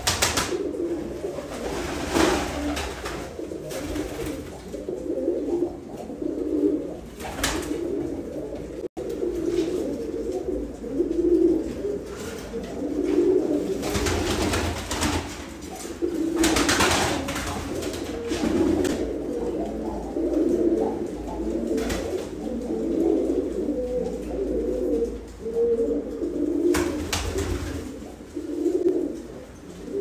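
Iraqi pigeons cooing, a low coo repeated over and over, from a male displaying to a female. A few brief noises break in, around two seconds in, midway and near the end.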